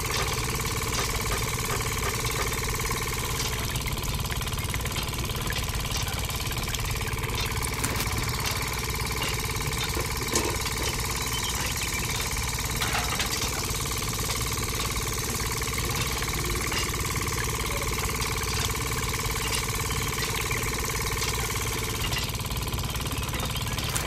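Small diesel-style engine running steadily, with a low rumble and a steady whine, driving a miniature belt-driven sugarcane juicer.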